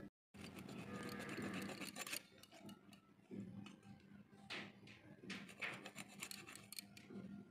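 Soft, faint rasping scrapes of a boti's curved iron blade slicing through a skinned swamp eel, several strokes a second or so apart.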